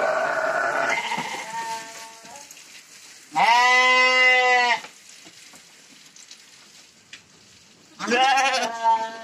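Sheep bleating: four calls, the loudest a long bleat about three and a half seconds in, and another near the end.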